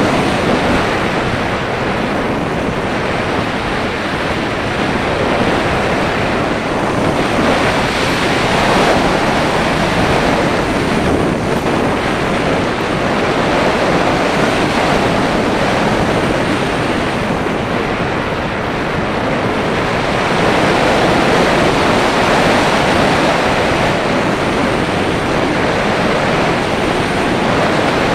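Airflow rushing over the microphone of an action camera mounted on a radio-controlled slope-soaring glider in flight. It is a loud, steady rush of wind noise that swells and eases slowly, with no motor sound.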